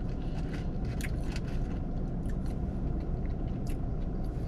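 Close-up chewing of French fries, with scattered small mouth clicks over a steady low rumble.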